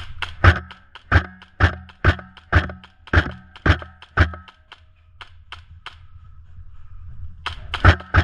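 Airsoft gun fired in a string of single shots, about two a second, eight sharp cracks, then after a pause a quicker group of four near the end, each shot with a brief metallic ring.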